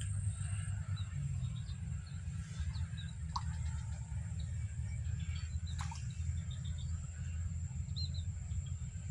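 Scattered short bird chirps and a couple of brief calls over a steady low rumble, with a faint steady high whine.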